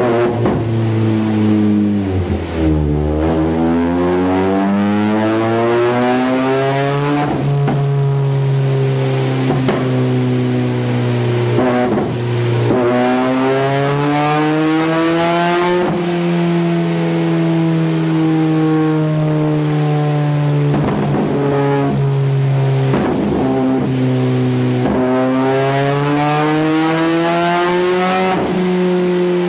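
Mitsubishi Lancer GT's four-cylinder engine and exhaust running under way. The note dips at first, then three times climbs slowly in pitch and levels off into a steady hum.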